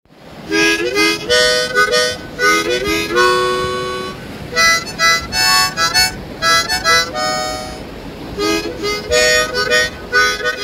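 Background music led by a harmonica, playing short phrases of held notes, some of them sliding in pitch.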